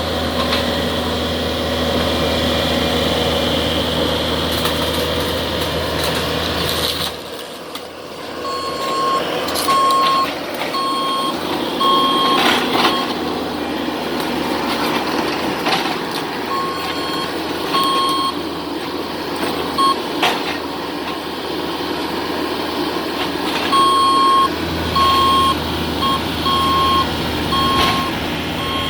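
Backup alarm on demolition equipment beeping in runs of evenly spaced beeps, about one a second, over a running engine, with a few sharp knocks.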